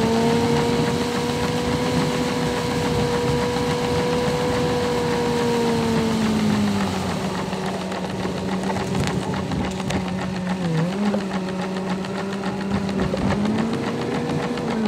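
A vehicle's engine heard from inside the cab while driving slowly, a steady hum that drops in pitch about halfway through as the vehicle slows and rises again near the end. Heavy rain on the roof and windshield fills the background with an even hiss.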